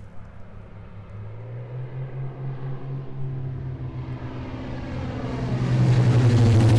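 Airplane engine droning steadily and growing louder as it approaches.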